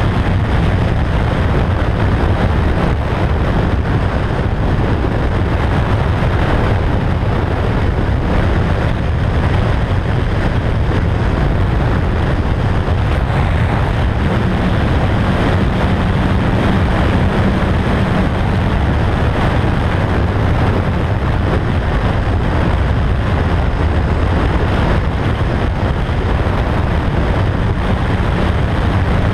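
Motorcycle cruising at highway speed: steady wind noise on the camera microphone over the drone of the engine and road.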